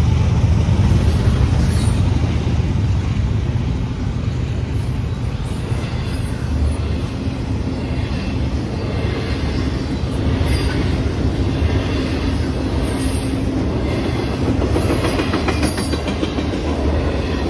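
Intermodal freight train cars, double-stack containers and trailers on flatcars, rolling past steadily. The wheels rumble on the rails with scattered clicks and clacks.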